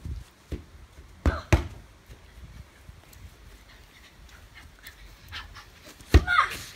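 Boys playing with a football on a lawn: two dull thuds about a second and a half in, light breathing in between, and a short high cry near the end.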